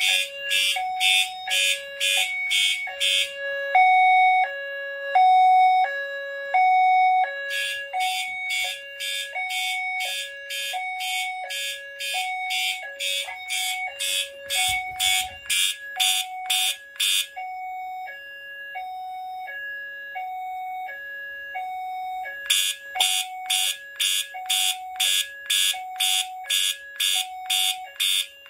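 Fire alarm notification appliances sounding in California code. A rapidly pulsing horn sounds in about 10-second bursts with about 5-second gaps, while a hi-lo two-tone alarm alternates steadily the whole time.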